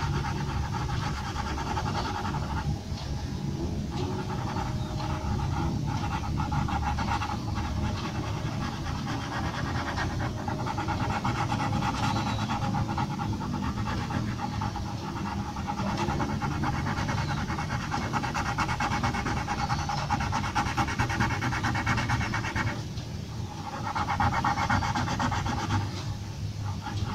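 Graphite pencil scratching on drawing paper in quick, short shading strokes, with brief pauses where the pencil is lifted.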